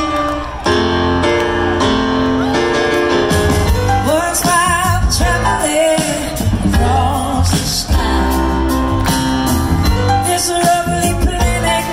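Live rock band playing with electric guitars and drums, and a woman singing lead with a wavering vibrato through the middle.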